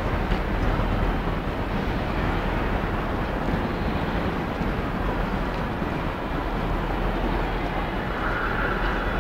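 Steady rumbling ambience of a railway station hall, with a faint high tone about eight seconds in.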